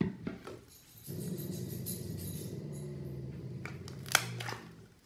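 Fluffy foam-soap slime being pressed and kneaded by hand: a low, steady squelch starting about a second in and lasting over three seconds, then a few sharp pops as trapped air bursts out near the end.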